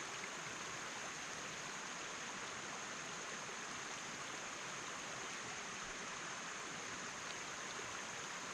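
Steady rush of river water flowing and falling over rocks, a constant even hiss with no breaks.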